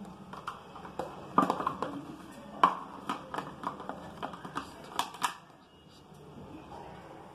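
Small cardboard boxes being handled on a hard floor: a quick run of taps, knocks and scraping rustles as a lid and insert are pulled out and pushed back. The sounds thin out after about five seconds.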